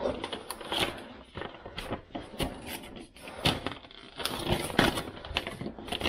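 Cardboard boxes and packets being handled and shifted on a cupboard shelf: irregular rustles, scrapes and light knocks.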